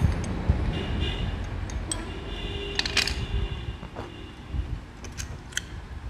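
Scattered light metallic clinks and taps from a motorcycle's front disc-brake caliper and brake pads being handled and fitted back on, the busiest about three seconds in. A steady low rumble runs underneath.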